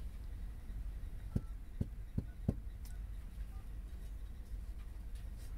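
Four soft, low taps in quick succession, a little over a second in, from hands handling craft pieces and a glue bottle on a tabletop, over a steady low hum.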